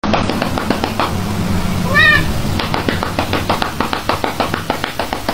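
A domestic cat meows once about two seconds in, a single short call that rises and falls in pitch. Under it runs a fast, steady ticking rhythm.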